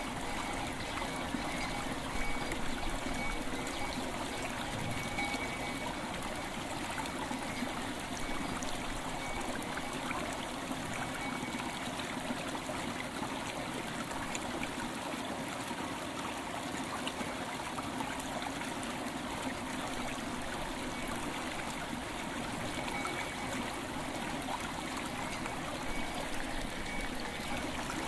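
River water flowing and trickling steadily, with faint ringing bell tones coming and going, most plainly near the end.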